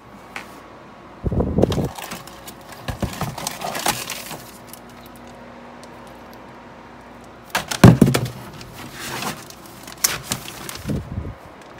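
Crumpled kraft packing paper and plastic wrapping rustling and crinkling as items are handled inside a cardboard box, in irregular bursts with a few knocks. The loudest bursts come about a second and a half in and about eight seconds in.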